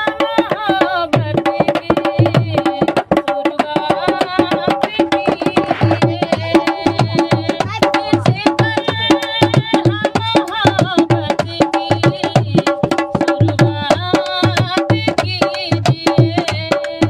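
A woman singing to a dholak, the two-headed rope-tensioned barrel drum played by hand. The drum keeps a fast, steady beat of deep bass strokes among sharper slaps.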